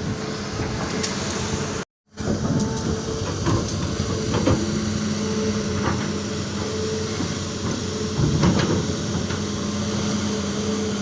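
Amphibious excavator's diesel engine running steadily under work, with several scattered metallic clanks. The sound drops out completely for a moment about two seconds in.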